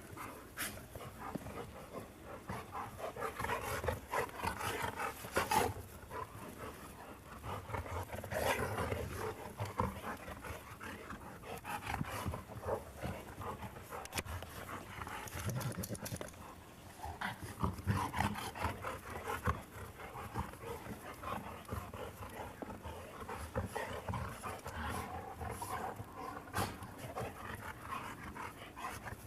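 Dogs playing roughly together, panting hard, with occasional growls and scuffling.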